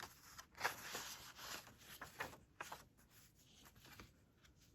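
Paper rustling as booklet pages and newsprint clippings are handled and turned: soft, irregular brushing strokes, thinning out after about three seconds.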